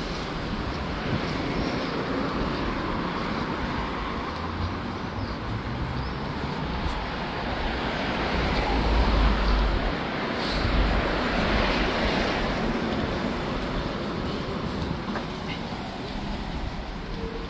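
City road traffic: a steady noise of vehicles, with a low rumble that swells as something heavy passes about nine seconds in.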